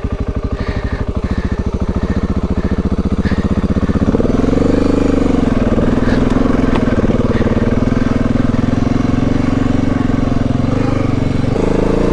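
Dual-sport motorcycle engine pulling at low revs with distinct firing pulses, then revving up about four seconds in and running steadily at higher revs, with a shift in engine note near the end.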